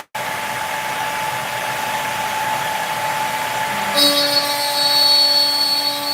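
CNC router spindle running through a cut, with the dust collection on: a steady machine whine over a noise haze. About four seconds in, a lower hum and a higher whine join in, as the cutter loads into the material.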